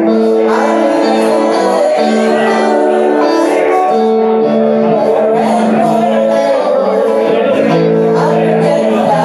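Live band music: an electric guitar with singing voices, playing long held notes in chords.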